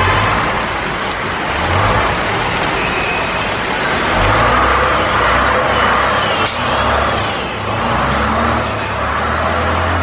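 Road traffic in a Chinese city: a steady wash of car, bus and truck engines and tyres, with a thin high squeal in the middle and a short sharp click about six and a half seconds in.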